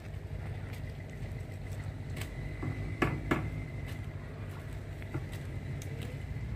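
An engine idling, a low steady hum, with a couple of sharp clicks about three seconds in.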